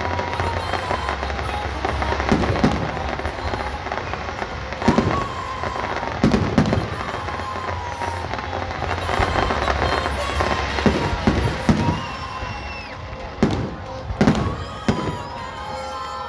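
Aerial fireworks display: repeated sharp bangs of bursting shells, about ten spread through, over continuous crackling and fizzing from the gold crackle shells and fountains.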